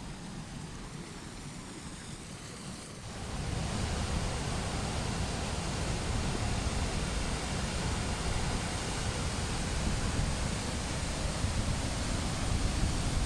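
Waterfall rushing in a steady roar of water noise, stepping up sharply in loudness about three seconds in.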